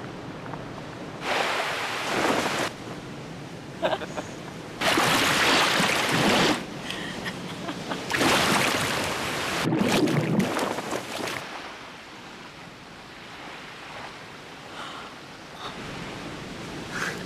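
Ocean surf: waves wash in and draw back, swelling loudly four times in the first dozen seconds, then settling to a quieter steady hiss of sea.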